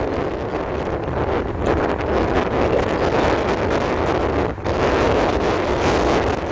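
Wind buffeting the microphone and road noise from a moving car: a loud, steady rushing noise that dips briefly about four and a half seconds in.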